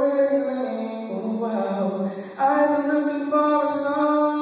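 A single voice singing unaccompanied into a handheld microphone, holding long notes and stepping between a few pitches.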